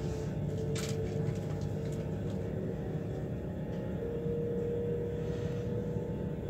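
Inside an ICE 4 high-speed train under way: a steady low running rumble with a faint whine from the electric traction motors. From about the middle, one whine tone holds steady.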